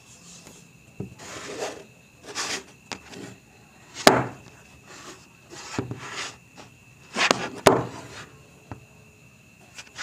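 Hands handling and turning a wooden corner joint on a cloth-covered surface: short rubbing and sliding sounds of wood against fabric and skin, with two sharp wooden knocks as the piece is set down, about four seconds in and again near eight seconds.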